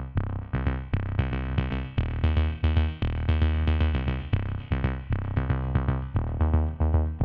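Background music: short, quickly repeated pitched notes over a deep, steady bass.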